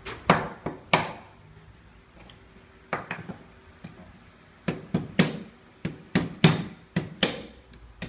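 A screwdriver struck and pressed against the spring-loaded pin in the head of a hand rivet gun to drive it out: about a dozen sharp metal knocks in irregular groups, some with a brief ring.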